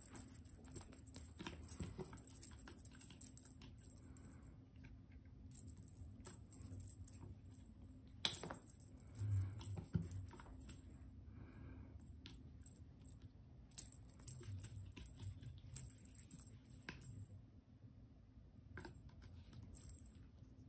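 A kitten's claws scratching and catching on a sisal-rope scratching post in short bursts, with light taps and soft thumps of its paws and body on the post base and rug. A sharp click comes about eight seconds in.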